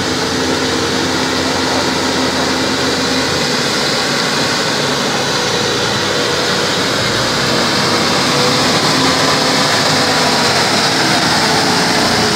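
Vehicle engines running under load in deep mud: a steady engine hum under a continuous rushing noise, with the hum easing about three and a half seconds in.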